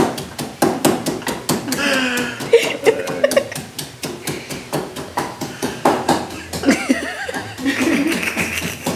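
Pestle pounding in a mortar (a Haitian pilon), rapid regular knocks about four a second, crushing garlic. Voices laughing and talking over it a couple of times.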